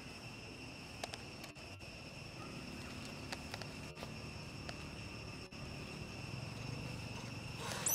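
Steady, high-pitched drone of insects such as crickets or cicadas, holding two constant tones, with a few faint ticks. A louder rustling noise rises just before the end.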